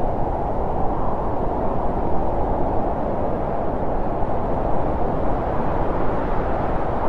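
Steady, even rushing noise, strongest in the low and middle range, with no distinct events.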